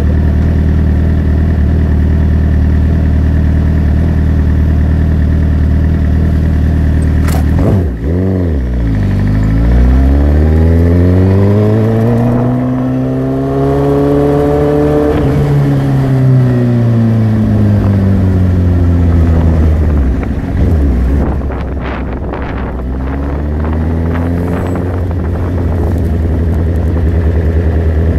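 Motorcycle engine idling steadily, with a click just before it pulls away about eight seconds in. The engine note rises as the bike accelerates, falls away again, rises briefly once more, and settles into a steady note near the end.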